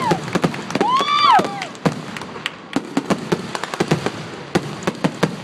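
Fireworks going off: many sharp pops and bangs in quick succession, with a brief rising-then-falling pitched whistle or whoop about a second in.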